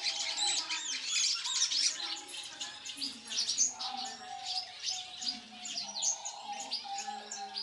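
Caged birds chirping and twittering without pause, many short, quick high calls overlapping, with some lower held calls mixed in.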